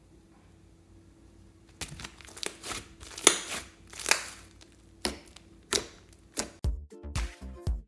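Hands squeezing and kneading a thick mass of clay-mixed slime, making irregular bursts of squishing, crackling noise after a quiet start. Near the end, music with a steady beat begins.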